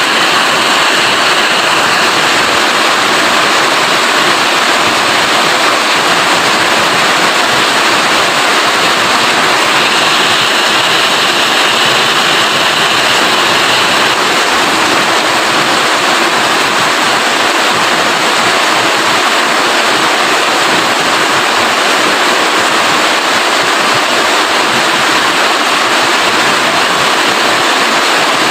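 Steady rain falling: a dense, even hiss of water that holds at one level throughout.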